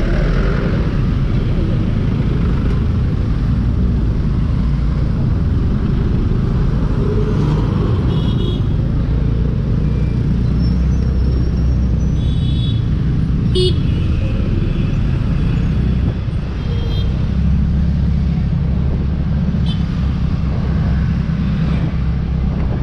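Steady road and traffic noise of busy city streets, heard while riding a scooter through traffic. A few short horn toots from surrounding vehicles sound about eight seconds in and again around twelve to fourteen seconds in.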